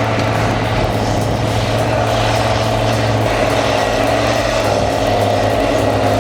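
Tigercat 625 skidder's diesel engine running steadily, a loud, even drone with a deep hum.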